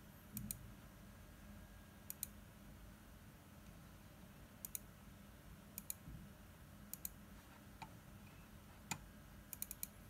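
Computer mouse button clicks, mostly in quick press-and-release pairs, every one to two seconds, with a quick run of several near the end.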